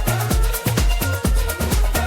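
Electronic dance music with a driving beat: deep bass kicks about four times a second and steady hi-hats, with no vocals.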